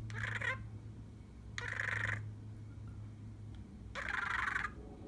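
Pet budgerigar (parakeet) chattering in three short bursts of its talking voice, about a second and a half to two seconds apart.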